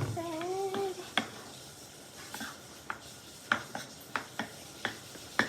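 Slime being stirred in a bowl, with scattered sharp clicks of the utensil knocking against the bowl. A brief pitched vocal sound, bending slightly in pitch, comes in the first second.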